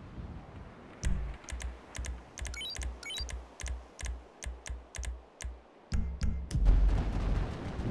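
Video game audio: a pulsing low beat about twice a second under sharp clicks and a short run of rising electronic beeps. About six seconds in, a heavier low rumble comes in and becomes the loudest part.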